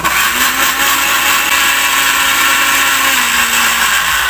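Countertop blender switched on and running, grinding carrot and ginger pieces in a little water. Its motor hum dips slightly in pitch near the end.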